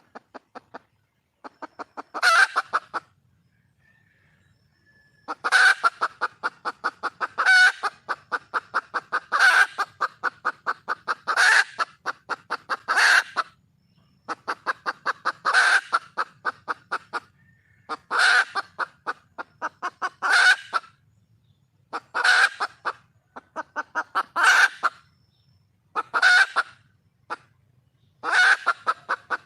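Junglefowl hen cackling: runs of rapid clucks, about seven a second, each ending in a louder, drawn-out note, repeated about every two seconds. It is a hen's call to attract a male.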